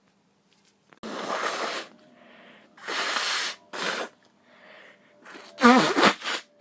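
A person sneezing: forceful noisy blasts of breath about one and three seconds in, and a louder sneeze with voice in it near the end, with faint breaths between.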